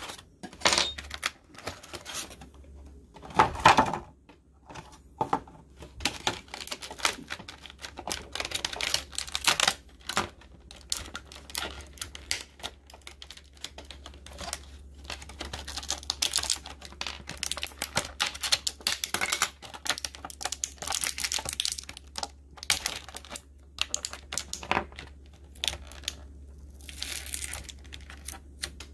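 Clear plastic blister packaging crackling and crinkling as hands pull it apart and handle it: a dense, irregular run of small clicks and crackles, with a louder burst of crackling about three and a half seconds in.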